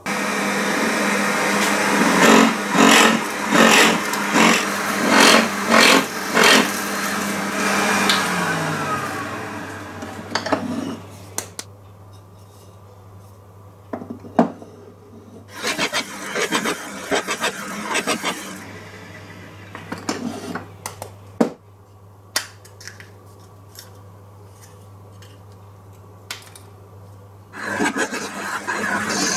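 Drill press boring into a solid walnut block with a Forstner bit: repeated plunges of the bit cutting, over a steady hum from a dust collector. The drill spins down about eight seconds in, and scattered knocks of the workpiece being handled follow. Cutting starts again near the end.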